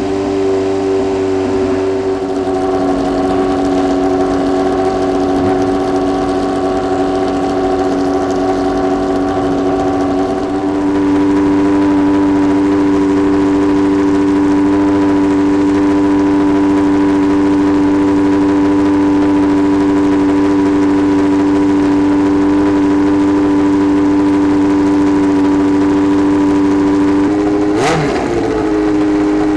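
Historic Formula 1 car engine held at steady revs, as in a warm-up, with a slight change in note about ten seconds in and a brief dip and click near the end.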